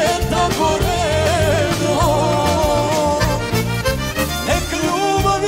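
A man singing a Serbian folk song live into a microphone, holding long wavering notes with vibrato, over a band with a steady bass beat.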